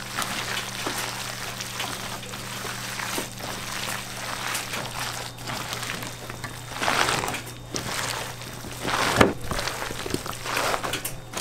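Gloved hands squishing and turning a wet, mayonnaise-coated croquette filling of chopped vegetables, egg and ham in a stainless-steel bowl: irregular wet squelching, with louder squelches about seven and nine seconds in.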